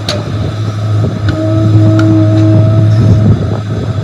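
A machine's motor running with a steady low hum, a higher whine joining in for about a second and a half in the middle, and a few sharp clicks.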